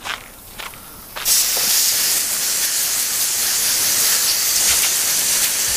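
Garden hose spray nozzle spraying water onto a boat's hull and trailer: a steady hiss that starts about a second in.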